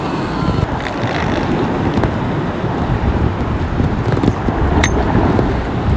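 Wind buffeting the microphone on exposed sea rocks: a loud, steady, irregular rumble. A brief sharp click about five seconds in.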